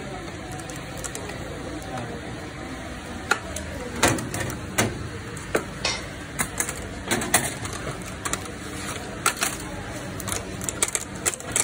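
Steel kebab skewers clinking and clanking against each other and the grill's metal rim as they are turned over charcoal. The clinks come often from about three seconds in, over a steady background hiss.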